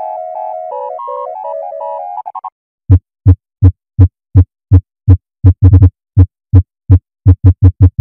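A synthesizer melody of quick stepping notes plays and stops about two and a half seconds in. It is followed by a run of short, low, buzzing electronic beeps, irregularly spaced at a few a second and bunching into quicker runs near the end. Together they make the alarm tones of a mock UK emergency alert.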